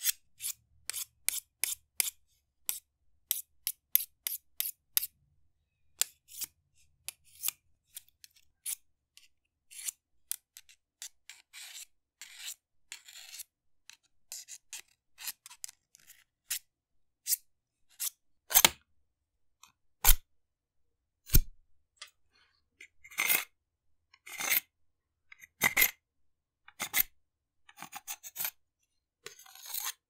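Something being sharpened: a series of short scraping strokes. They come quickly and evenly at first, then slower and more irregular, with a few louder, fuller strokes about two-thirds of the way through and longer strokes after them.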